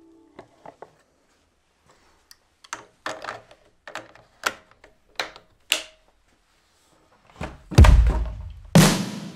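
Small clicks and taps as the plastic filler cap is screwed onto a Stihl MS 231 chainsaw's tank. Near the end, two heavy booming drum beats about a second apart as music starts.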